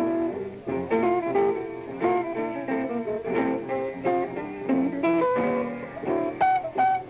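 Live jazz from a trio of electric guitar, double bass and piano, with the guitar most prominent, picking a busy run of quick, changing notes.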